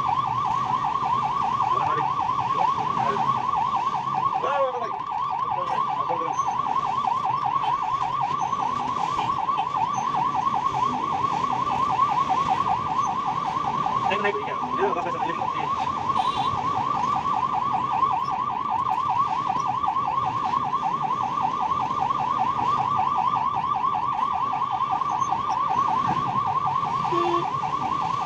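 Ambulance's electronic siren sounding a rapid, unbroken warble, heard from inside the cab over the low rumble of the moving vehicle.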